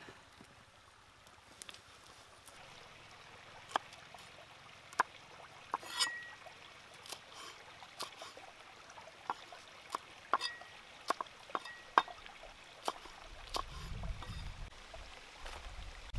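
Cleaver chopping winged beans on a wooden cutting board: a run of sharp, irregular knocks against faint steadily trickling water. A low rumble comes in near the end.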